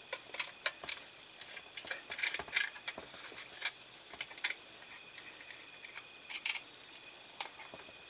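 Irregular light plastic clicks and taps as a battery compartment cover on the underside of a die-cast model car is handled and taken off.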